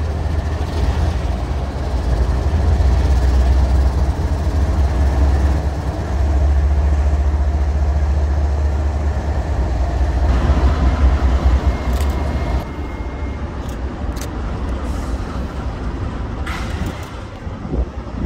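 A train passing close by, with a loud, steady rumble that drops off abruptly about twelve seconds in.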